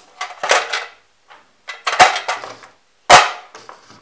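Stacks of plastic buttons tied together with thread dropped into a round metal biscuit tin, clattering against the metal. Three main clatters, the loudest near the end.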